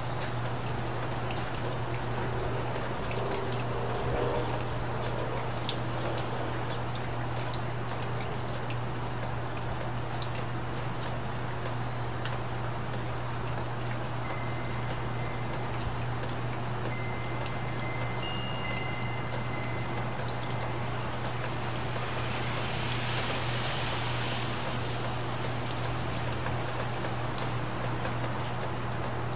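Steady rain falling, with scattered drips and light patter, over a constant low hum. A few short high chirps come near the end.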